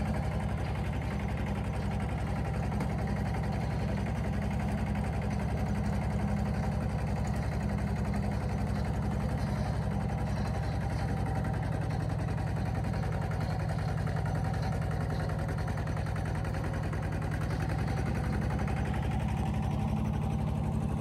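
An engine running steadily at an even speed, without revving up or down.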